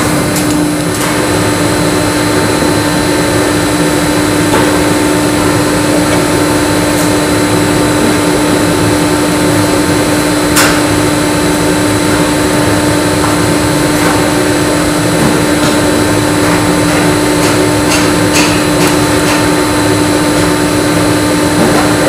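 Steady mechanical drone with a constant low hum, from a running machine such as a fan or blower. A few light clicks of hand tools come through it, the sharpest about ten seconds in.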